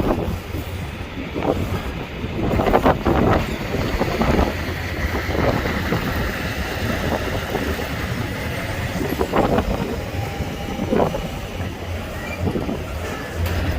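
Freight train cars rolling past, with a steady low rumble and irregular clusters of wheel clacks over the rail joints.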